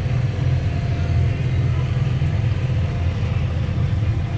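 A steady, low engine drone with no break.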